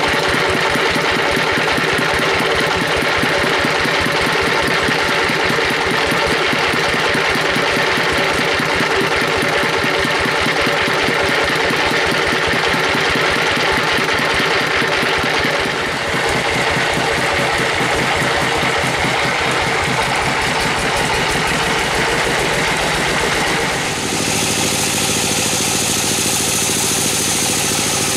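The engine driving a band sawmill runs steadily with a fast, even beat. About 24 s in the sound changes to a smoother, hissier running as the band saw comes close.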